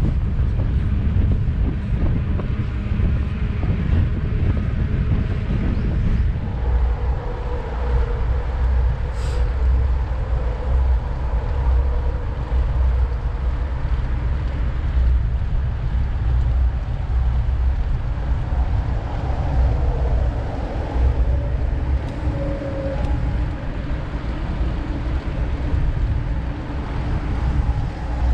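Wind buffeting an action camera's microphone, with tyre rumble from a mountain bike being ridden: a steady, loud low rumble. Faint humming tones come and go in it from about six seconds in.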